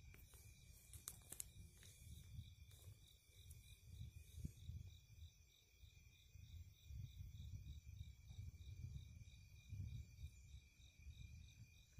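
Faint night insects, crickets, chirping steadily in a quick pulsing rhythm of about four pulses a second, over a low rumble of wind or handling on the microphone, with a few soft clicks about a second in.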